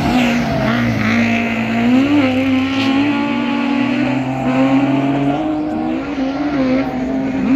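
Rallycross cars, a Citroën Saxo among them, running hard through a corner, with their engine notes rising and falling through the gears. A second, lower engine note runs alongside and drops out about five seconds in.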